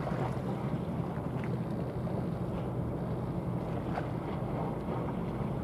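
Steady low drone of marine diesel engines from a passing cargo ship and the tugboat alongside it, with some wind on the microphone.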